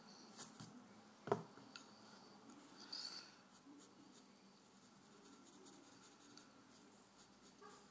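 Faint scratching of a graphite pencil sketching on paper, with one sharp tap about a second in and a few softer clicks.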